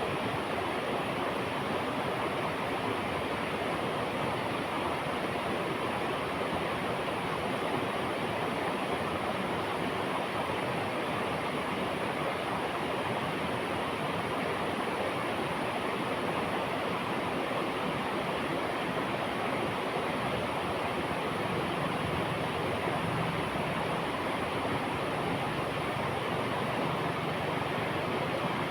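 River water flowing steadily, a continuous, even rush with no breaks.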